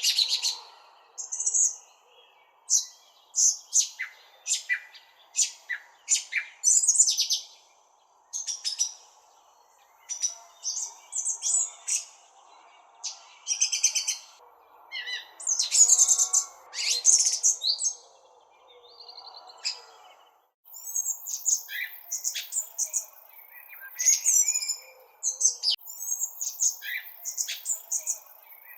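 Several birds chirping and tweeting in quick, varied bursts with short gaps, over a faint steady background hiss. A thin, high, steady tone joins about two-thirds of the way through.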